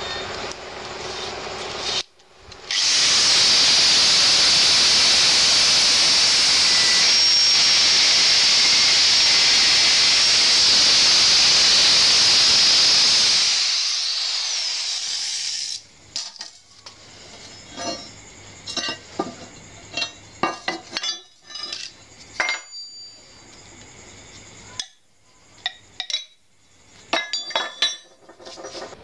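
Handheld angle grinder cutting through a steel bearing ring: a loud, steady grinding for about ten seconds, then the disc winds down. After that come scattered metallic clinks as the cut pieces of ring are handled.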